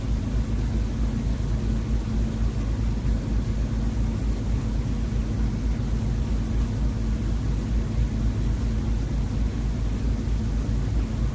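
A steady low rumble with a constant hum, unchanging throughout.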